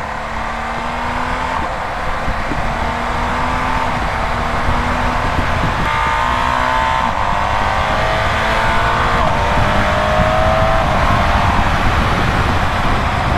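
BMW R 1250 GS Adventure's boxer-twin engine pulling at highway speed, its note climbing slowly as the bike accelerates, over a steady rush of wind and road noise.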